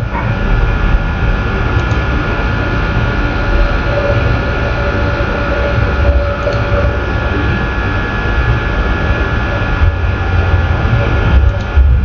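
Steady, loud rushing noise with faint steady whining tones, a machine running close to the microphone.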